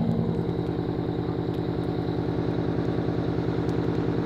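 An engine running steadily at a constant speed, with an even, rapid pulse, and a few faint clicks over it.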